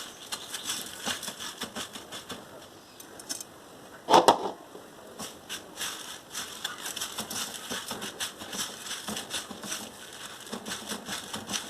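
Dry crushed vermicelli rustling and crackling in many small irregular clicks as egg-dipped potato balls are rolled and pressed in it, with one louder knock about four seconds in.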